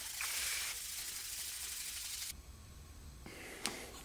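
Hand wet-sanding painted sheet metal with 2000-grit paper on a sanding block: a steady soft hissing rub that stops a little past halfway, followed by a faint click.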